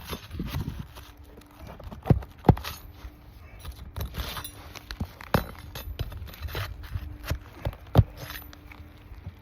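Steel flat bar prying and scraping under brittle asphalt shingles, with several sharp metal knocks against the roof, the loudest about two seconds in, half a second later, and near the end.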